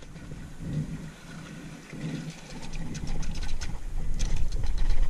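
River water sloshing around a person wading beside a wooden canoe, with a run of small clicks in the middle and a low rumble that grows louder toward the end.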